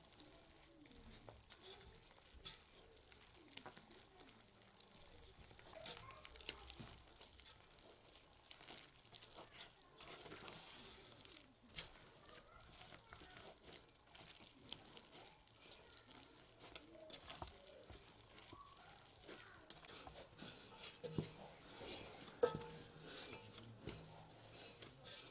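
Faint squishing and rustling of hands mixing flour and an oily yellow liquid in an aluminium bowl and kneading it into a soft dough, with small knocks against the bowl and one sharper knock near the end.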